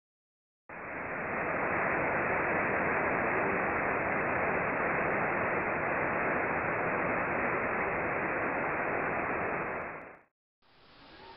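Steady, even hiss of noise that starts abruptly just under a second in and cuts off suddenly near the end.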